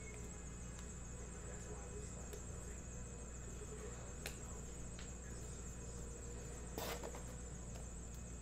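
Trading cards handled by hand: faint clicks and one short rustle as cards are shuffled and set on a stack about seven seconds in, over a steady low hum and a constant high-pitched whine.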